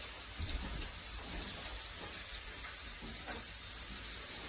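Chicken sizzling faintly between two smoking-hot cast iron pans, a steady hiss.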